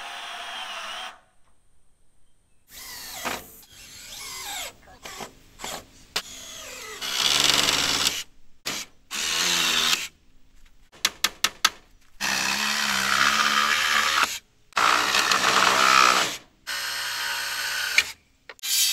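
Cordless drill driving screws in a series of short runs a second or two long, the motor whine dropping in pitch as each run stops. A quick cluster of sharp clicks comes about eleven seconds in.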